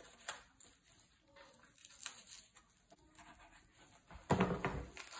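Kitchen knife slicing through raw turkey skin and meat on a plastic cutting board, with soft scattered clicks and wet handling sounds as the leg is pulled away from the body. A louder dull knock comes about four seconds in.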